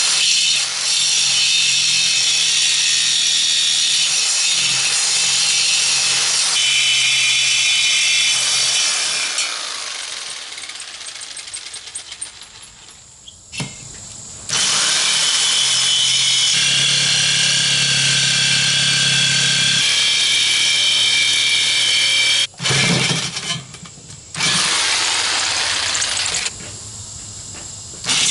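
Chicago Electric jigsaw cutting through the steel top of a 20-pound propane tank, sawing out the tongues of a tongue drum, with a high metallic screech from the blade. It cuts in long runs, dies away once about ten seconds in, then stops and starts again several times.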